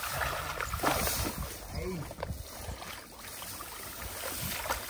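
Water sloshing and splashing around people wading, with indistinct voices now and then.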